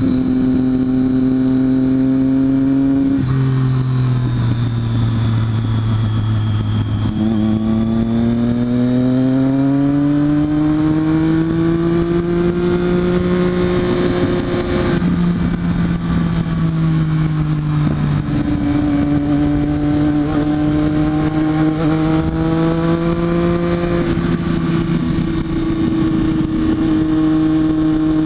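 Triumph Daytona 675R's 675 cc inline-three engine running continuously, its pitch changing through the stretch: level spells, a slow climb, and sudden steps down and up.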